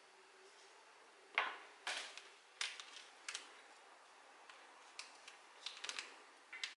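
Kitchen handling noises: irregular sharp clicks and light knocks from food on a wooden cutting board and a plastic-wrapped soba noodle packet being picked up and handled, with a quick cluster of clicks near the end before the sound cuts off abruptly.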